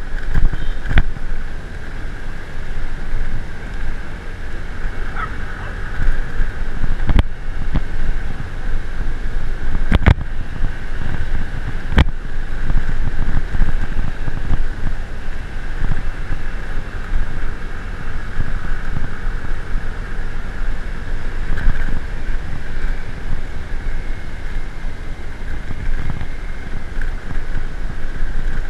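A vehicle engine drones steadily during a ride, under heavy wind buffeting on the microphone. A few sharp knocks come through, about a third of the way in and again a little later.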